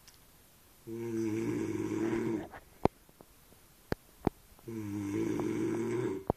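A man snoring with a drawn-out, low, moo-like tone that sounds like a cow, twice, each snore about a second and a half long. A few sharp clicks come in the gap between the snores and right after the second one.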